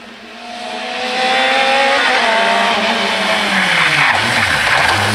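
Rally car engine at high revs as the car approaches, growing louder, its pitch climbing and breaking with each gear change. From about three and a half seconds in, a loud rush of tyre noise joins it, like tyres skidding on the wet tarmac.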